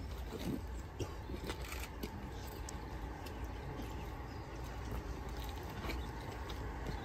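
Quiet outdoor ambience: a steady low rumble, with a few faint scuffing footsteps and clicks on wet tarmac.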